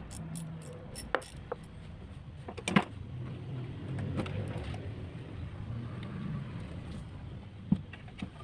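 Hand tools clicking and knocking against metal fittings in an engine bay while a fuel-hose clamp is worked loose: a few scattered sharp clicks, the loudest about three seconds in and another near the end, over a low steady hum.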